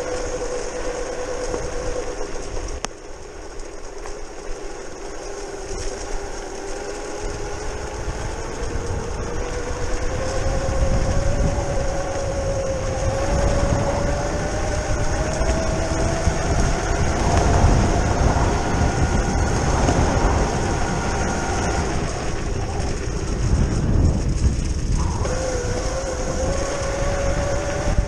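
Brushless outrunner motor of a modified Razor E300 electric scooter whining as the scooter rides. Its pitch climbs slowly with speed, drops away about 25 seconds in, then rises again. A low rumble runs underneath.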